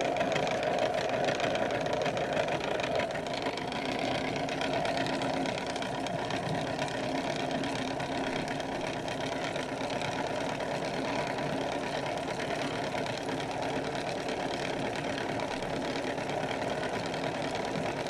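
Kid Connection toy washing machine's small motor running steadily as it spins the drum with a dress inside.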